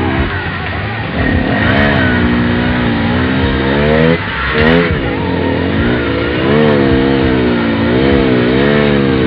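Fin Komodo off-road vehicle's engine running under constantly changing throttle, its pitch rising and falling about once a second, with a brief dip a little past the middle.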